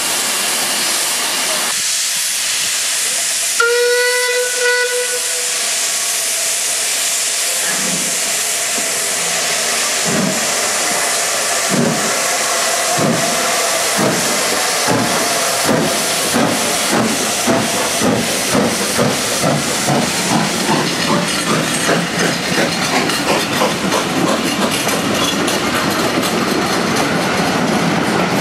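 Metropolitan Railway No. 1, an E class 0-4-4T steam tank locomotive, hissing steam, then giving one short whistle about four seconds in. It then starts away with slow exhaust chuffs that steadily quicken as the train pulls out, with the coaches' wheels clattering near the end.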